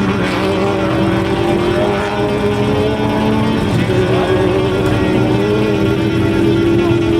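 Off-road race vehicle's engine running hard at high revs, its pitch held nearly steady with small rises and dips.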